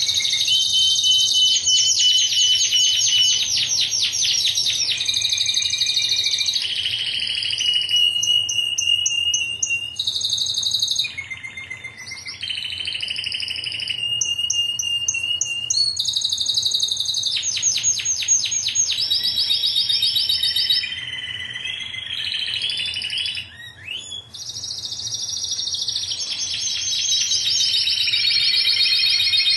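Domestic canary singing a long, loud song of rapid trills and rolls, switching from one trill to the next every second or two, with a couple of brief pauses.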